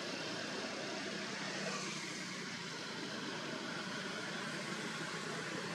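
Steady outdoor background noise: an even, continuous hiss with a faint low hum underneath, unchanging throughout.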